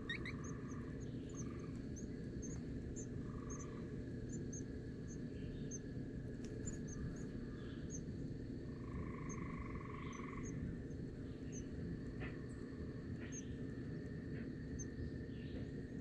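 Outdoor spring ambience over a steady low rumble and a constant high hum. Small birds give many short, high chirps throughout, with a few quick rising chirps at the very start. Several brief buzzy trills are heard, the longest about nine to ten seconds in.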